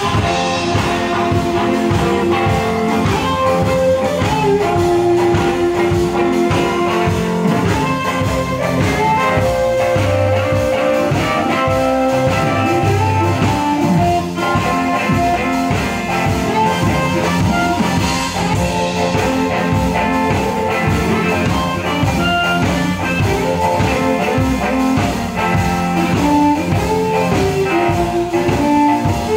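Live blues band playing an upbeat swing instrumental break: archtop electric guitar and harmonica over upright bass and drums with a steady beat.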